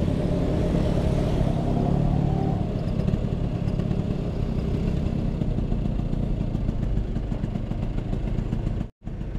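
Vespa P150S scooter's single-cylinder two-stroke engine running at low speed in traffic, heard through a helmet-mounted microphone with a heavy low rumble. The sound cuts out for a split second near the end.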